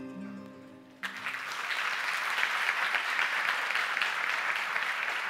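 Plucked-string music fading out, then an audience breaking into steady applause about a second in.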